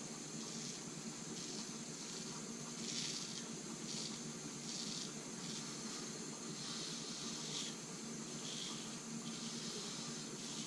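Dovo Best Quality 6/8 straight razor scraping through lathered stubble in short strokes, a rasping hiss about once a second, over a steady low hum.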